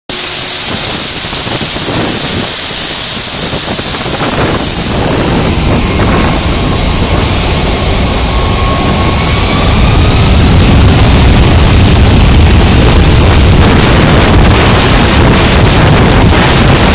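Twin-engine jet airliner's engines spooling up for takeoff at close range: a high whine early on gives way to a deep roar that builds from about four seconds in and grows louder about halfway through, with the jet blast buffeting the microphone.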